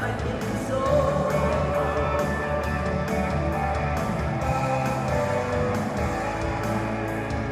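Amplified band music with electric guitar and a steady beat.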